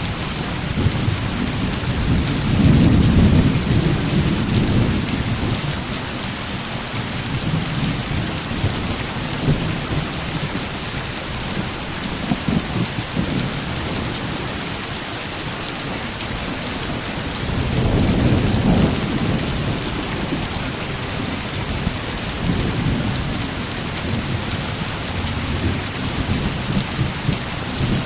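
Heavy rain falling steadily, with thunder rumbling low in slow swells, loudest a few seconds in and again about two-thirds of the way through.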